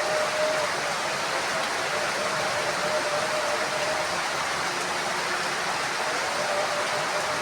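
Heavy rain falling steadily on a house roof, an even hiss with no thunder.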